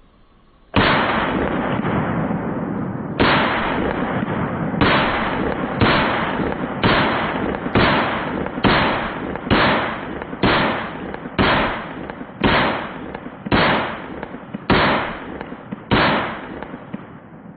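A series of about fourteen loud gunshots, each ringing out for about a second. The first few are spaced wider apart; the rest come roughly one a second.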